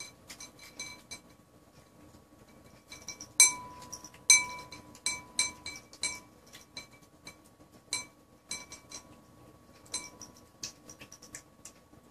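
Siamese cat eating tuna from a ceramic bowl, clinking against the bowl again and again at an irregular pace. Two sharper clinks come about three and a half and four and a half seconds in, with the bowl ringing briefly after them.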